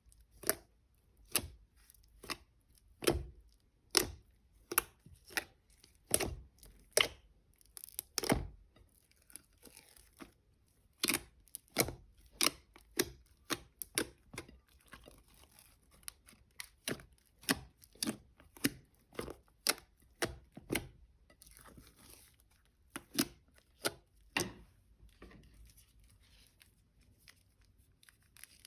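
Plastic piping bags being snipped with scissors and torn open: a run of sharp snips about one a second, with softer crinkling in between, thinning out near the end.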